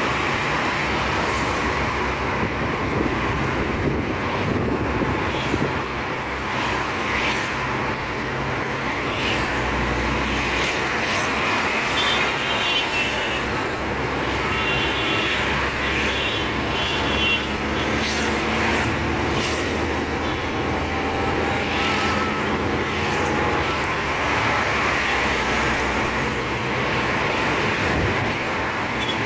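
Car engine and tyre noise heard from inside a moving car in city traffic, steady throughout, with short bursts of high beeping about twelve and fifteen seconds in.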